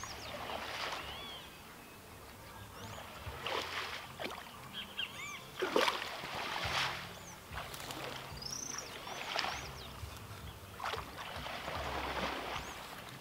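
Water sloshing and splashing in irregular bursts as a person wades through a shallow pond, hauling a seine net. Small birds chirp throughout.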